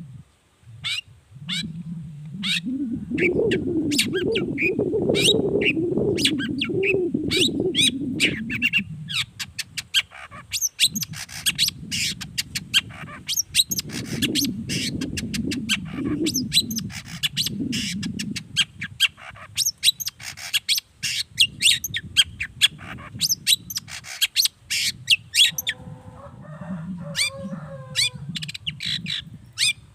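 Long-tailed shrike (cendet) singing: a fast, dense run of short, sharp chattering notes, with a lower background sound underneath.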